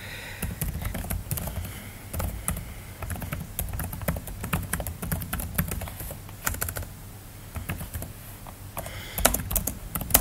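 Typing on a computer keyboard: irregular key clicks, coming in a quicker run near the end.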